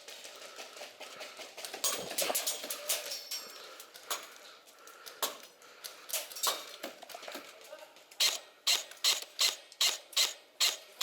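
An airsoft player on the move: rustling and scattered knocks, then near the end a fast, even run of sharp clicks, about two or three a second.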